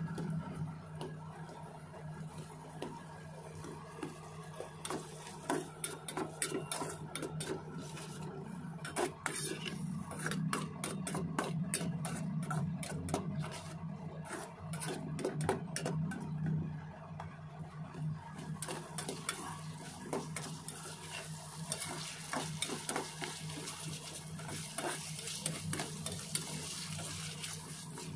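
Slotted metal spatula scraping and clicking against a stainless steel frying pan as sliced mushrooms are stirred and sautéed, with the sizzle of frying. The clicks are densest in the first half; after the middle a steady frying hiss comes forward. A low steady hum runs underneath.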